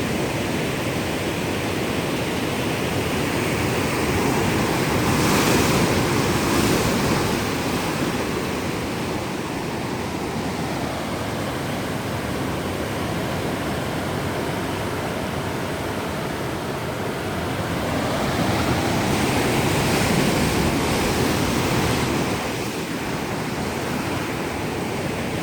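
Ocean waves breaking on the shore: a steady rushing wash that swells louder twice, about five seconds in and again around twenty seconds in.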